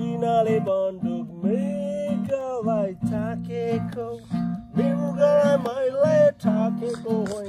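Acoustic guitar strummed steadily while a voice sings a gliding melody over it.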